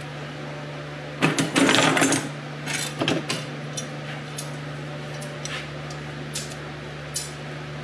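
Steel brake-line tubing and flaring-tool parts clattering and clicking as they are handled over a metal workbench and tool case. The loudest run of knocks comes about a second in, then a few more knocks and light clicks, over a steady low hum.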